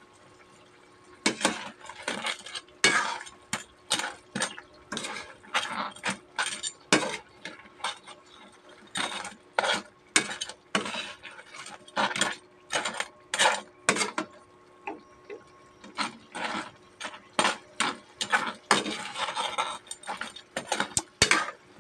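Cooking utensil knocking and scraping against a metal pot and hard crab shells as whole crabs are stirred in their simmering sauce: a run of irregular clacks, about two a second, with a brief lull partway through.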